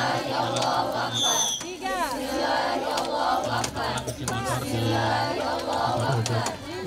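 A large crowd of voices calling out and chanting at once, many overlapping and indistinct, with a brief high whistle-like tone about a second in.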